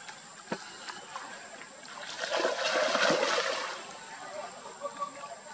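Water splashing and lapping as macaques swim in a muddy pool, with a louder stretch of splashing in the middle.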